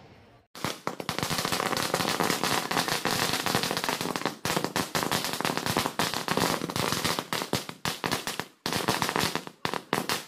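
A string of firecrackers going off in rapid succession: a dense, continuous run of sharp bangs that starts about half a second in and breaks off briefly twice before carrying on.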